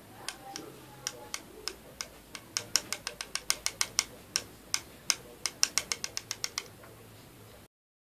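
A finger tapping at a homemade earphone-cable microphone to test it: a run of sharp clicks, sparse at first, then about four or five a second, stopping a little past halfway.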